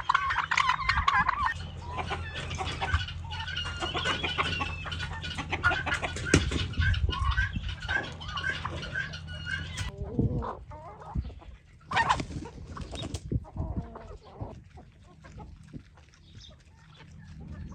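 Chickens clucking: a quick run of short calls for about ten seconds, then fewer and sparser calls.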